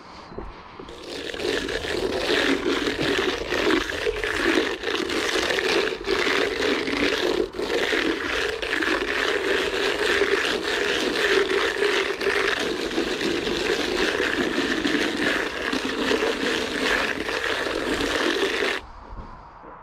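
A float being worked over fresh render on a wall: a steady, gritty scraping and rubbing that starts about a second in and cuts off suddenly near the end.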